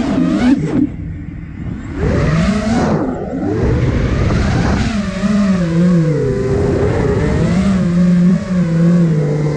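Brushless motors and propellers of an iFlight Nazgul Evoque F5 FPV quadcopter whining, the pitch sliding up and down with the throttle. The sound drops away about a second in and then climbs back as the throttle is punched again.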